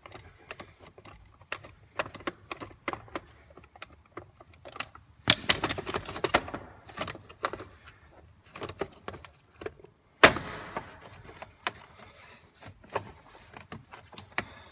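Handling clatter at a minivan's steering column as a Phillips screwdriver takes out the shroud screws and the plastic clamshell halves are worked loose. Scattered clicks and rattles, a busier stretch of clatter about five to six seconds in, and one sharp knock about ten seconds in.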